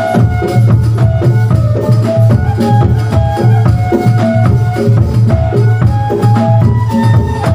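Loud Kubro Siswo dance accompaniment: a steady, driving drum beat with shaken and struck percussion under a melody of short held notes stepping between pitches.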